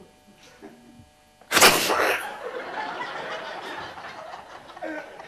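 A sudden loud burst about a second and a half in, then an audience laughing, fading slowly.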